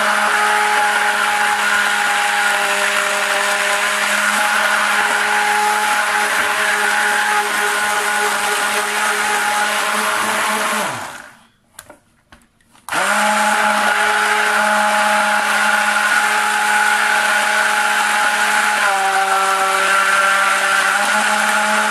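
Immersion (stick) blender running in a jug of cold-process soap batter, blending it toward trace as it thickens. It runs steadily, stops for about two seconds a little past halfway, then starts again, its tone shifting slightly near the end.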